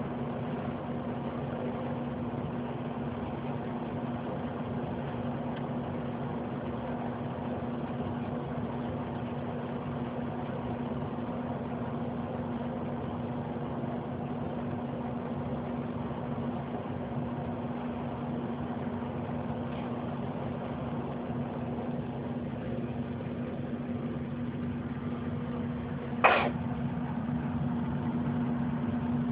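Steady low mechanical hum of a running machine, with one sharp knock near the end.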